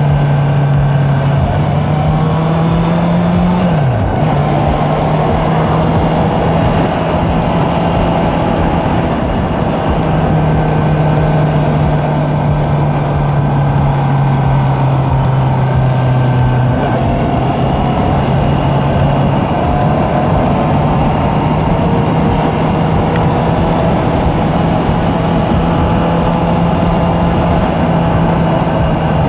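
Honda CB650F inline-four engine running at steady cruising revs on the move, over road and wind noise. About four seconds in, the engine pitch drops sharply and then comes back up.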